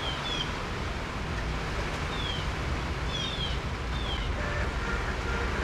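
Outdoor background: a steady low rumble with a few short, high chirps that fall in pitch, coming singly and in pairs.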